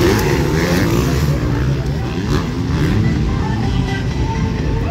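Motocross bikes racing on the track, several engines revving up and down as the riders work the throttle.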